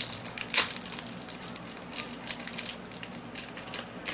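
Plastic snack packet crinkling and crackling as it is handled and opened, with a sharper crackle about half a second in.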